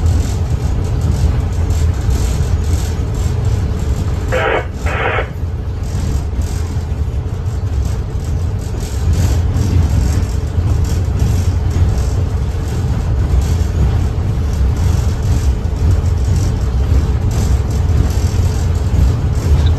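Locomotive cab under way: a steady low engine and running rumble with constant rattling and clatter. Two short higher-pitched sounds come one after the other a little over four seconds in.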